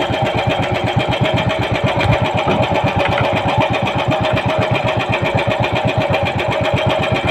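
Small boat engine running steadily, a fast even chugging of about eight to nine beats a second.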